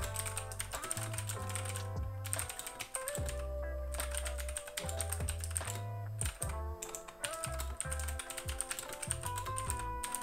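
Keychron K2 wireless mechanical keyboard with blue switches being typed on quickly: a fast run of loud, clicky key clacks with a few brief pauses. Background music with a bass line plays underneath.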